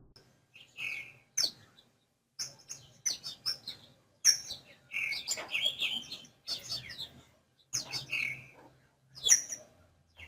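Small songbirds chirping: many short, high chirps in irregular clusters, several often in quick succession.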